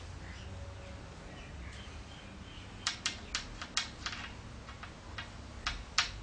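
Small, sharp metal clicks and taps as the screws holding a mini lathe's shaft pillow block are worked out. About seven come in quick succession midway, and a few more near the end.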